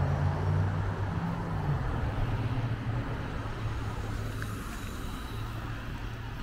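City street traffic: a motor vehicle's engine drones low, loudest at first and slowly fading as it passes, over steady traffic noise.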